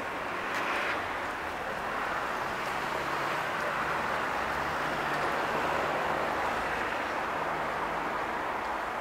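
Road traffic passing: a steady rush of tyre and engine noise with a low engine hum, swelling toward the middle and easing off.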